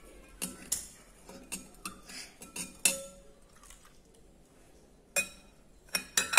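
Metal spoon clinking against the side of a glass bowl while stirring soy milk: a run of light clinks, some ringing briefly, a lull in the middle, then a few sharper clinks near the end, the last the loudest.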